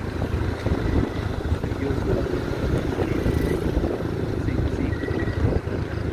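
Motorcycle riding along, its engine and road noise mixed with wind buffeting the microphone in a loud, uneven rumble.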